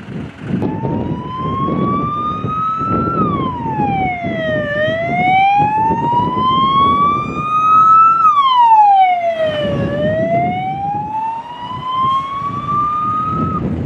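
Fire engine siren wailing, slowly rising in pitch and then falling more quickly, three rises and two falls, cutting off shortly before the end. A low wind rumble on the microphone runs underneath.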